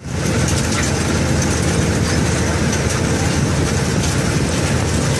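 Engine of a watermelon harvesting rig running steadily with a low, even hum.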